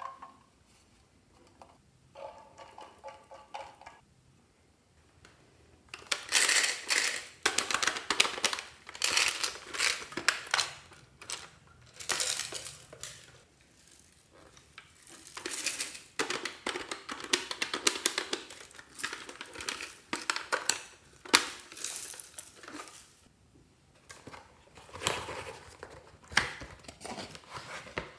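Hands handling and opening plastic toy and cosmetic packaging: crinkling and rustling in irregular bursts, with light clinks against glass dishes, starting about six seconds in.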